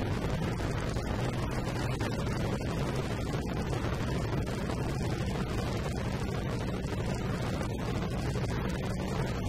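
Harley-Davidson Road King's V-twin engine running steadily at cruising speed, a constant low rumble under heavy wind noise on the bike-mounted microphone.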